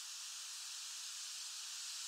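Steady, even hiss of background noise with no distinct sounds in it.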